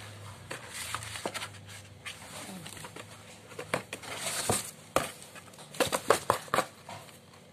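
A cat scrabbling and rolling inside a cardboard box: its claws scratch and scrape the cardboard and rustle crumpled paper in irregular scratches and clicks. These come thicker and louder from about halfway through.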